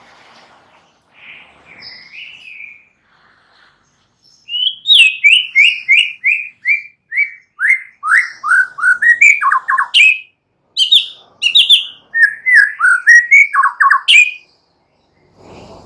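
White-rumped shama (murai batu) singing. A few soft chirps come first. About four seconds in begins a loud, fast run of clear downslurred whistled notes, two or three a second. After a short break, a second run stops about a second before the end.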